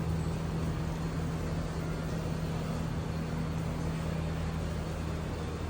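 Steady low machine hum over a constant hiss, with one fixed tone; the tone drops out shortly before the end.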